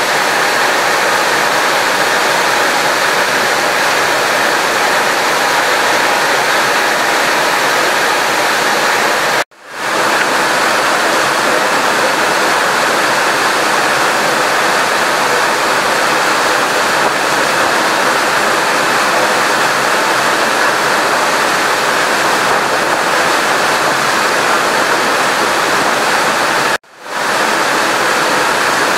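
Heavy rain pouring down in a steady, loud hiss, breaking off for an instant twice.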